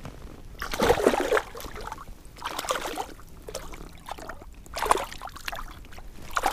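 Hooked northern pike thrashing at the surface of shallow water as it is landed by hand, splashing in four separate bursts.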